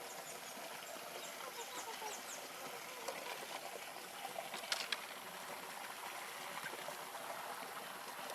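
Faint outdoor ambience: a steady low hiss with a few short, high chirps in the first couple of seconds and two or three sharp clicks about halfway through.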